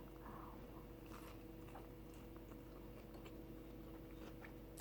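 Faint chewing of a mouthful of soft chicken taco, with soft, irregular mouth clicks and wet smacks.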